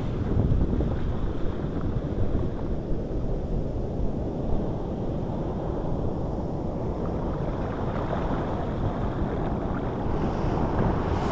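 Ocean surf and foamy wash running close by, with wind rumbling on the microphone.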